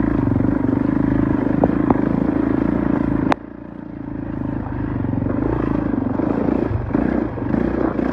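Kawasaki KX450 dirt bike's single-cylinder four-stroke engine running steadily. About three seconds in it cuts off abruptly with a click, then returns quieter and grows louder again.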